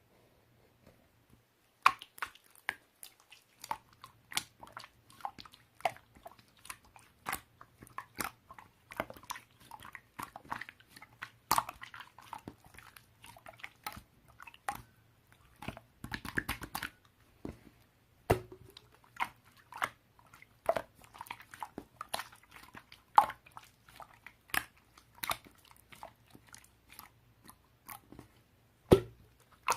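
Crunchy chewing: irregular crisp crunches and clicks, several a second, starting about two seconds in.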